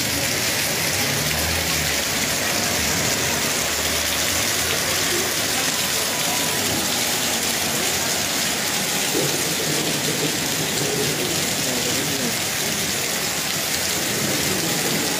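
Heavy hailstorm: hail and rain pouring down on a street in a dense, steady hiss.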